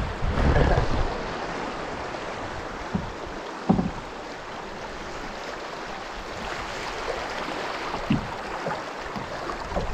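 Steady rush of a small river's spring-melt current around a solo canoe, with a few short thumps: one near the start, one a little under four seconds in, and one about eight seconds in.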